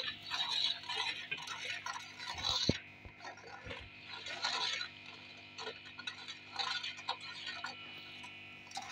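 Metal spoon scraping and clinking against a pot while stirring a thick spice masala frying in oil, in irregular strokes about once a second.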